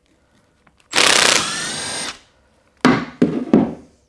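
A 12-volt cordless driver runs for about a second, loud at first and then a steady whine as it spins out the screws holding the pressure relief valve in the Mercedes OM651 oil filter housing. Three or four loud knocks follow as the driver and the part are knocked and set down on a wooden board.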